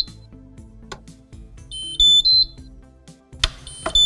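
Electronic signal beeps from a Häfele Free Swing E lift-up fitting's drive unit in programming mode: short runs of three or four high, stepped tones, about two seconds apart. Background music with a steady beat runs underneath, and a brief burst of hiss comes about three and a half seconds in.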